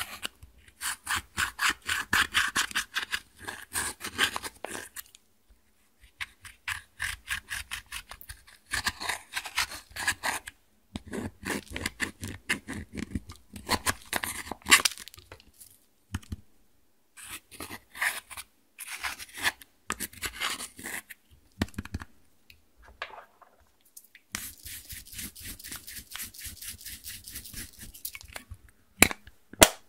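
A thin pointed tool scraping pressed eyeshadow out of a plastic palette's pans, in bursts of quick scratchy strokes with short pauses between. Two sharp clicks near the end.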